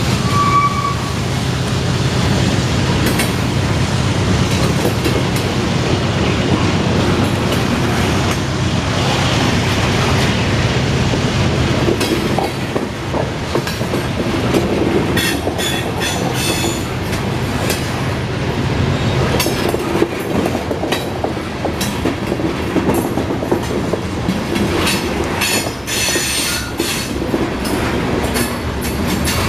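Freight train of covered hopper cars rolling past close by, steel wheels clacking over the rail joints and rumbling along the track, with bursts of high wheel squeal about halfway through and again near the end.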